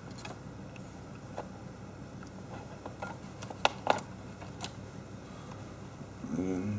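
Light clicks and taps from handling laptop parts by hand during a hardware install, with two sharper clicks about three and a half to four seconds in.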